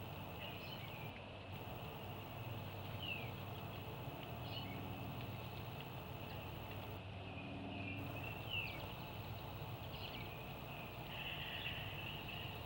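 Outdoor bird sounds: a short high whistle sliding downward, heard twice about five seconds apart, among scattered soft chirps, over a steady high-pitched background hum.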